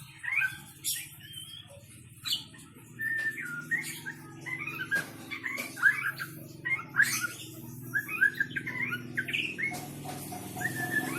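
White-rumped shama (murai batu) singing a fast, varied song of short whistled phrases and chirps, over a low steady hum.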